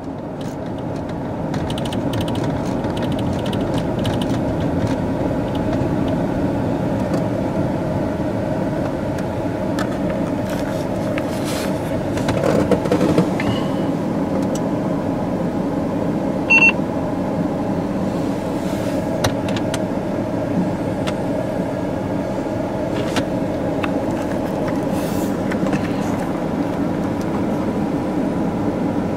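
Steady road and engine noise inside a moving car's cabin, with a short, high beep a little past halfway.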